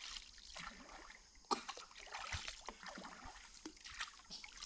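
Water splashing and trickling in irregular strokes, with a sharper splash about one and a half seconds in.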